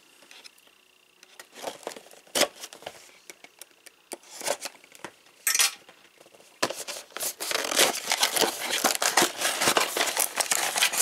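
A hobby knife cuts the tape seal on a cardboard toy box with a few sharp clicks and scrapes. From about seven seconds in, the box flaps are opened and the cardboard is handled, with continuous rustling and scraping.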